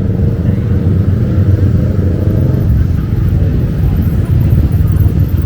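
Street traffic noise: a steady, loud low rumble of passing cars and motorbikes.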